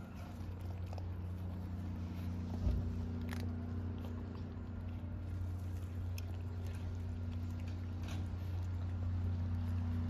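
Several cats crunching dry kibble, short crisp crunches scattered over a steady low hum, with one thump about two and a half seconds in.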